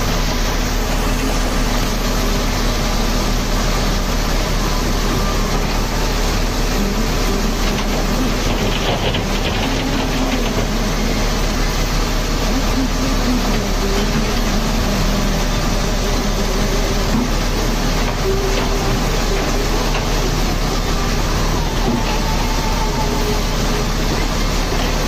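Tata Hitachi tracked excavator's diesel engine running steadily under load as it digs rock and dumps it into a dump truck, with rocks clattering.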